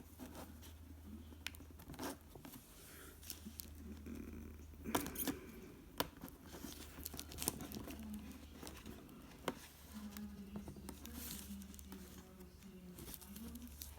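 Faint clicks and crinkly handling noises as an iPad 2's parts are pressed back into place by hand, over a steady low hum.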